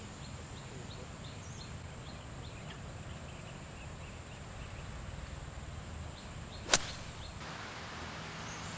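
A golf iron striking the ball, a single sharp click near the end, over a steady high insect whine and faint bird chirps.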